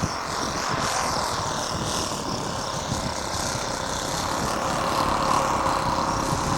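Distant radio-control model airplane engine droning, its pitch wavering slightly, over a steady hiss of wind and outdoor noise.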